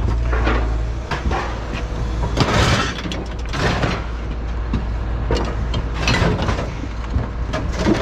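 Scrap metal and appliances being handled, with irregular clanks, knocks and scrapes, about one every second. A low steady hum fades out about a second in.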